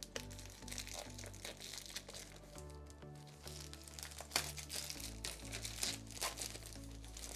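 Clear plastic shrink wrap crinkling and crackling as it is peeled off a cardboard product box, in short irregular crackles, the sharpest about halfway through. Background music with held low notes plays underneath.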